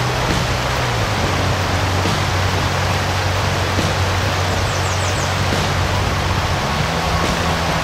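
Steady rush of river current picked up by a camera held under the water, with a low hum underneath.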